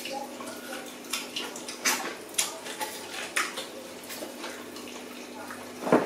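Wet mouth smacks and slurps of oxtail stew being eaten with the hands, meat sucked off the bone and fingers licked: about ten short, sharp, irregular smacks, the loudest about two seconds in and just before the end. A faint steady low hum runs underneath.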